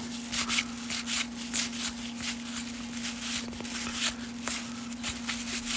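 Cardboard 1989 Fleer baseball cards being thumbed through one at a time, each card slid off the stack with a quick papery scrape or flick, a few per second at an uneven pace. A faint steady hum sits underneath.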